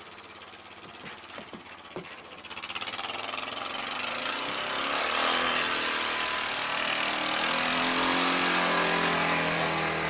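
Four-wheel-drive ATV engine running, growing steadily louder from about two and a half seconds in and then holding steady with a fast rattling beat. A few short knocks come in the first two seconds.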